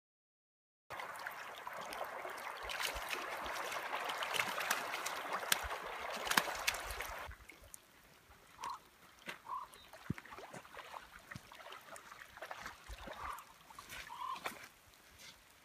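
A steady rush of water with many small clicks in it, ending abruptly about seven seconds in. Then a quieter stretch with four short bird calls.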